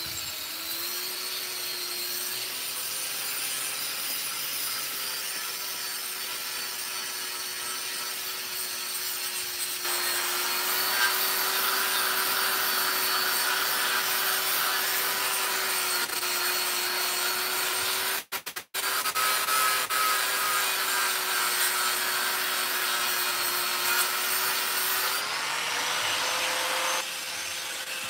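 Angle grinder running, its motor whining steadily, then grinding on a steel anvil slab with a harsh rasp from about a third of the way in. The sound breaks off briefly just past halfway. Near the end the motor's pitch rises as the disc is lifted off and the grinding noise stops.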